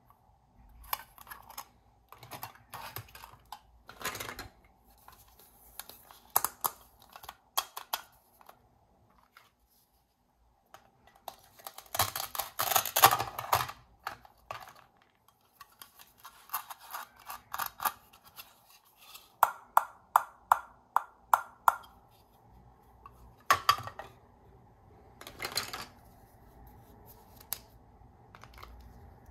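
Plastic toy fruit pieces being handled and knocked together on a plastic cutting board: many light plastic clicks and taps, some in quick runs, with a louder rasping stretch about twelve seconds in.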